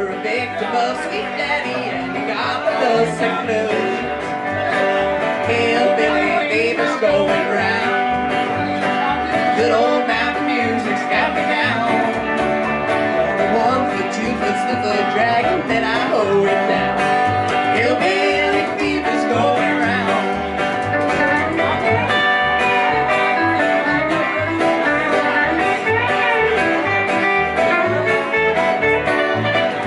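Live country band playing an instrumental stretch: electric and acoustic guitars over an upright bass plucking a steady beat.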